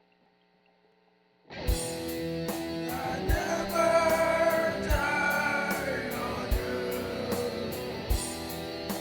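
Silence for about a second and a half, then instrumental background music starts, with a steady beat and a melody.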